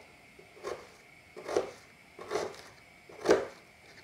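Kitchen knife cutting through a peeled onion onto a cutting board: four separate strokes a little under a second apart, the last one the loudest.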